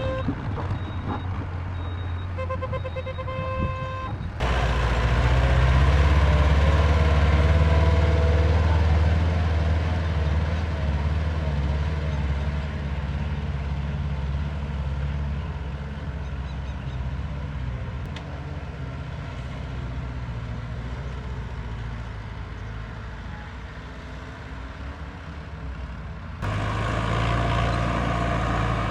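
Heavy diesel machinery engines running. For the first four seconds a repeating electronic beep sounds over the engine. Then the sound cuts to a loud, low, steady engine that slowly grows quieter, and near the end cuts again to another engine.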